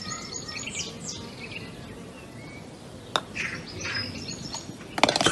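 Small birds chirping in short bursts of high calls, with a single sharp click about three seconds in.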